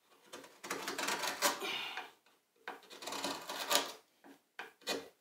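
Small carving gouge pushed by hand through hard birch, paring shavings from the spoon's bowl: two long scraping cuts, then a few short ones near the end.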